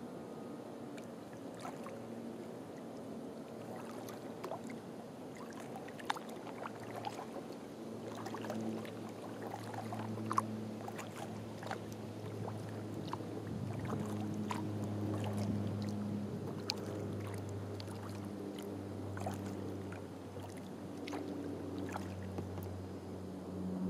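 Kayak paddling on calm water: small splashes and drips from the paddle, heard as scattered light ticks. A low, wavering hum underneath grows louder about eight seconds in.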